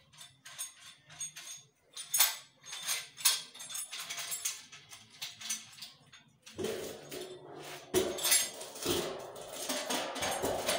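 Metal clinks and clicks as a satellite dish's mounting bracket and feed arm are handled and fitted together. The sound gets louder and busier past the middle, as the arm is set against the dish.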